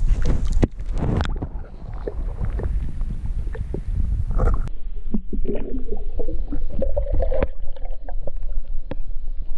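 Pond water sloshing and gurgling around a camera that dips underwater as a largemouth bass is released by hand. The sound turns muffled and dull once the microphone is under, with scattered sharp knocks and bubbling.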